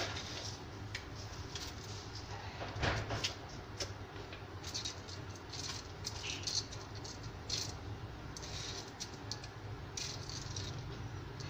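A hand spreading and levelling soaked glutinous rice in a metal steamer tray: grains rustling and scraping against the metal in irregular strokes, with a couple of louder clatters about three seconds in.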